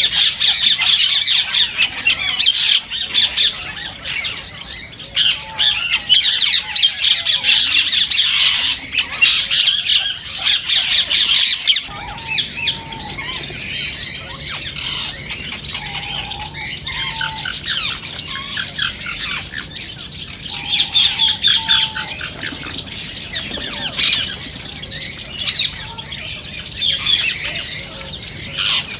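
A flock of rose-ringed parakeets (Indian ringnecks) screeching in rapid, harsh, overlapping squawks. The calls are loudest for about the first twelve seconds, then drop to a softer, steady chatter.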